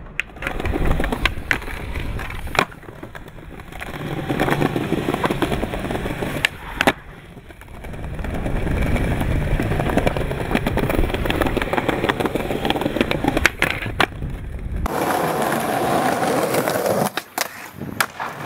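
Skateboard wheels rolling over paved ground, broken several times by sharp clacks of the board popping and landing on the ground.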